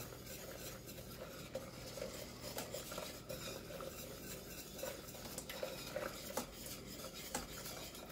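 Metal whisk stirring a thin sauce in a stainless steel saucepan, with light irregular clinks of the whisk against the pan, as cornstarch slurry is whisked in to thicken it.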